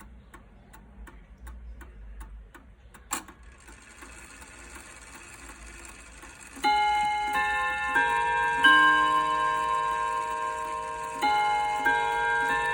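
Seth Thomas No. 64 Sonora chime clock ticking steadily, with a louder click about three seconds in. It then strikes its chime: four ringing bell notes that sustain and overlap, and after a short pause a second phrase begins near the end.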